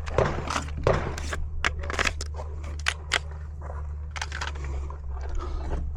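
A string of sharp clicks and crunching rustles, about a dozen, irregularly spaced, over a steady low rumble.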